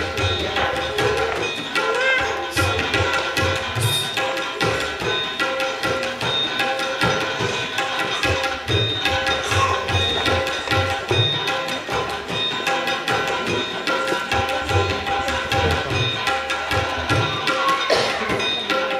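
Tabla solo: a rapid run of strokes on the dayan (the right-hand treble drum), which rings at its tuned pitch, mixed with deep bass strokes on the bayan.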